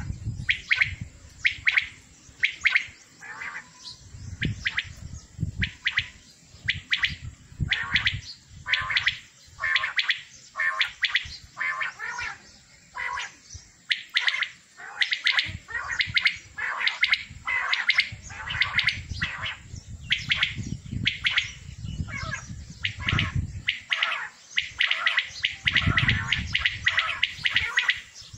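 A flock of caged male quails calling over one another: short, sharp calls repeated again and again, overlapping into an unbroken chorus that grows busiest near the end.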